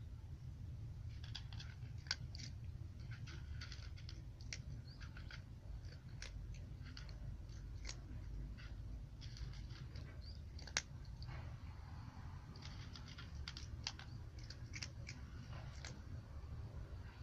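A cat crunching dry kibble: a quick, irregular run of small crisp crunches over a low steady hum.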